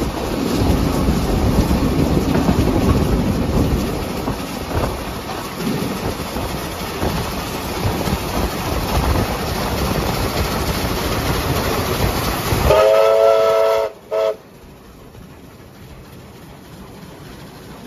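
Steam-hauled train running at speed, with a loud rumble of wheels on rails. About thirteen seconds in, a steam locomotive whistle sounds one blast of about a second, then a short toot, and the running noise falls away to a much quieter background.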